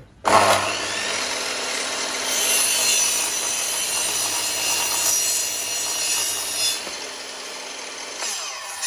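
Makita LS1012 sliding compound miter saw switching on suddenly and running steadily while its blade is lowered through a length of wood in a 45-degree bevel cut.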